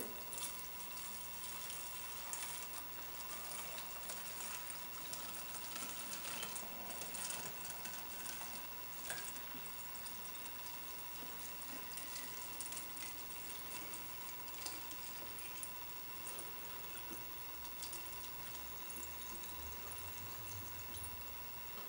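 Fuel poured in a thin, steady stream from a plastic cup into a narrow-necked plastic bottle, a faint continuous trickle as the bottle fills.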